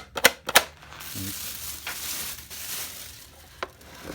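A few sharp knocks and clicks of handling the unboxed belt sander and its parts, then about two seconds of rustling from its packaging, and one more click near the end.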